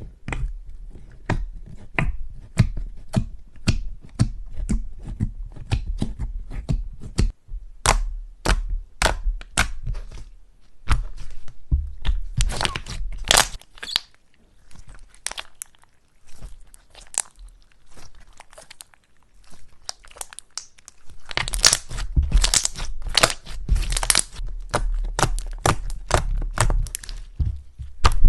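Slime being kneaded and mixed by hand: a run of sticky clicks and pops, about two or three a second, with denser crackling stretches around the middle and near the end.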